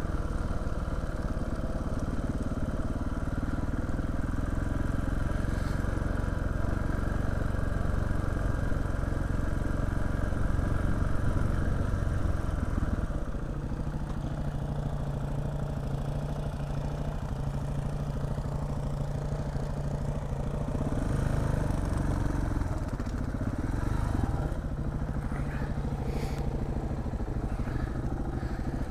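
KTM 690 single-cylinder four-stroke trail bike engine running at low speed on a rough track, heard from on the bike. The engine note drops about halfway through as the bike slows, then rises and falls a little near the end.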